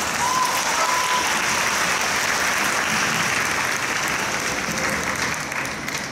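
Audience applauding, coming up suddenly as the band's music stops and easing off near the end.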